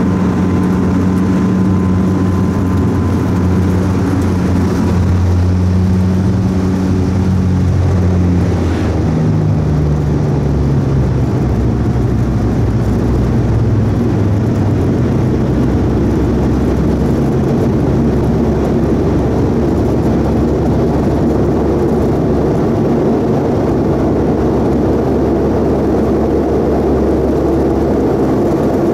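Saab 340B Plus's General Electric CT7-9B turboprop engine and propeller heard from inside the cabin as the aircraft rolls on the ground after landing: a loud, steady low drone whose pitch steps down about nine seconds in, after which it turns rougher and noisier.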